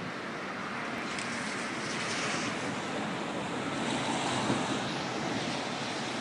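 Steady rushing noise of wind on the microphone, slowly growing louder.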